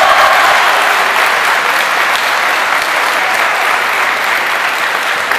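Crowd applauding steadily, acclaiming a point just awarded in a kendo bout, easing off slightly toward the end.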